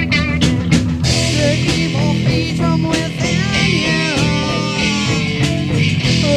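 Improvised psychedelic rock jam: a guitar playing bending, sliding notes over a steady bass line, with drum hits.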